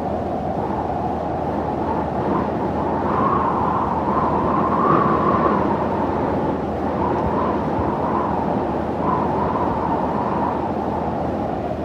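Desert ambience sound effect: a steady low rushing noise that swells slightly about four to six seconds in.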